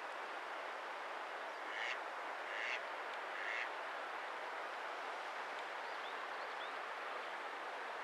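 Eastern spot-billed duck quacking three times in quick succession, between about two and four seconds in, over a steady hiss. A few faint, high chirps follow a little later.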